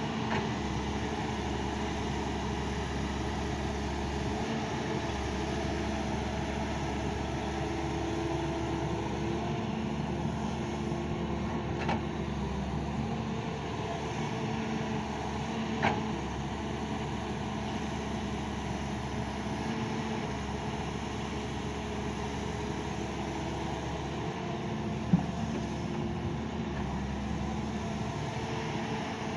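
Doosan excavator's diesel engine running steadily, with a few short sharp knocks, the loudest near the end.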